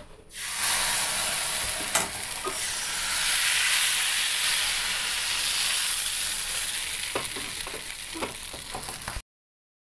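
Fermented rice-and-coconut palappam batter sizzling as it hits a well-heated non-stick appam pan and is swirled round, a steady hiss that stops suddenly near the end. A few light knocks come about two seconds in and again near the end.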